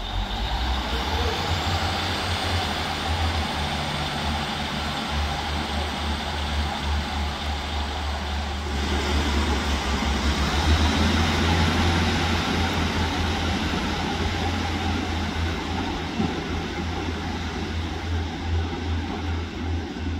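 British Rail Class 150 Sprinter diesel multiple unit's underfloor diesel engines running under power as the train pulls away from the platform, a deep steady hum with a high whine that rises in pitch near the start and again about halfway, loudest just after halfway.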